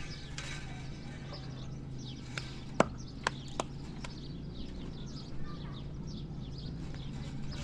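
A few sharp knocks in quick succession, over a background of birds chirping.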